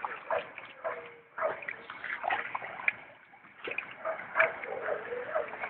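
Water splashing and sloshing in irregular bursts as a dog works through water after rocks, with a quieter pause about halfway through.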